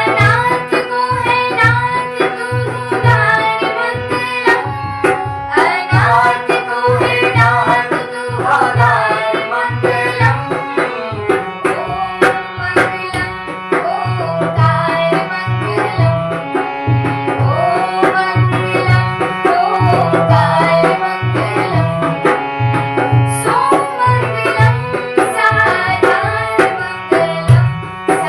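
Devotional bhajan music: a steady tabla beat under a melody that slides between notes.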